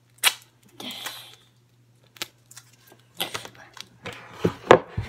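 Duct tape being handled: fingers scratch and pick at the stuck end of a roll. There is a short rasp of tape peeling about a second in, and scattered clicks and taps follow, with a couple of louder knocks near the end.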